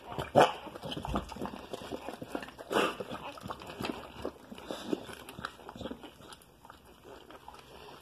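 Whelping American Bully and her newborn puppies: irregular short snuffling and rustling noises while a puppy is delivered by hand, louder about half a second and again nearly three seconds in, growing quieter toward the end.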